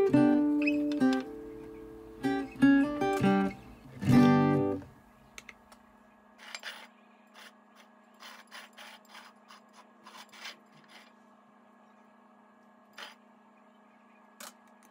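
Acoustic guitar background music that stops about five seconds in. After it, only faint scrapes and light clicks of a knife spreading whipped cream over a stack of pancakes, over a low steady hum.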